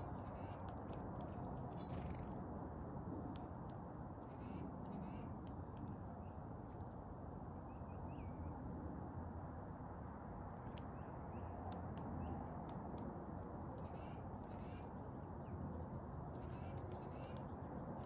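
Small songbirds at a winter feeder calling: many short, high chips and quick falling whistles scattered throughout, over a steady low background rush.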